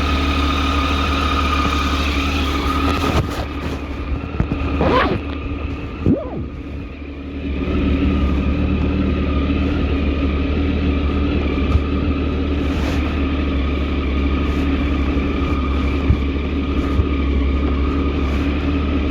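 A vehicle engine running with a steady low drone. It eases off for a few seconds about four seconds in, with two short sweeps in pitch, then settles back to the same drone.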